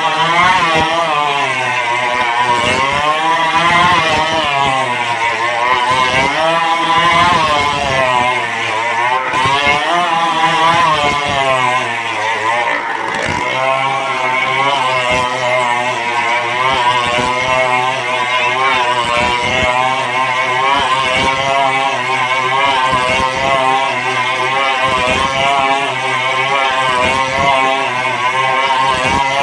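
Motorcycle engines running hard as they circle the inside of a wooden wall-of-death drum. The engine note rises and falls in pitch about every two seconds with each lap, then holds steadier from about halfway through.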